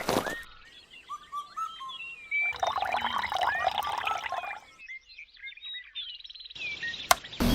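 Birds chirping, with short rising and falling calls, in several short stretches that start and stop abruptly as if cut together, and a single sharp click near the end.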